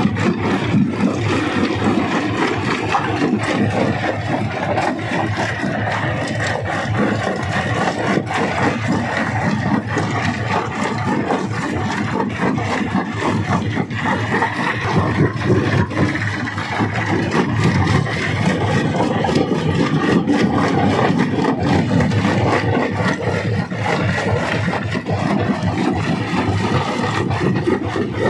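Rock crusher running and crushing stone: a steady, loud grinding with dense crackling of breaking rock throughout.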